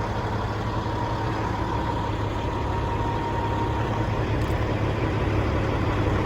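Caterpillar 3406E inline-six diesel in a Kenworth W900L truck, idling steadily.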